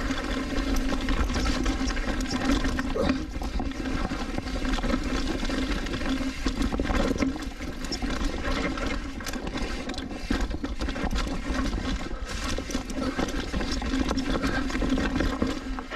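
Mountain bike descending a rocky trail: tyres rolling and rattling over rocks, with a steady hum and wind rumble on the microphone.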